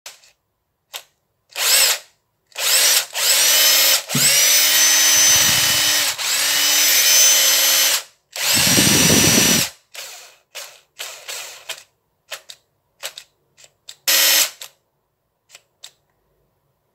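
Makita cordless impact driver running unloaded in repeated trigger pulls, each start a rising whine. Several runs of one to two seconds come first, two of them rougher and heavier. These are followed by a string of short, stuttering blips.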